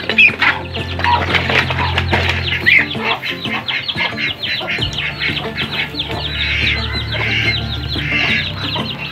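Muscovy ducklings peeping continuously, a rapid stream of short, high, falling peeps, many a second, from a brood feeding together.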